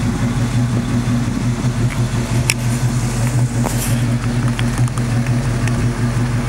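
1980 Pontiac Trans Am's V8 engine idling steadily, with a brief click about two and a half seconds in.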